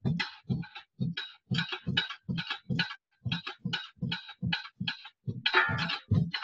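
Drum kit played in a quick, even pattern of about three to four strokes a second, each with a low thump and a bright cymbal top, with a longer cymbal crash about five and a half seconds in. The sound drops to silence between strokes, as on a video call.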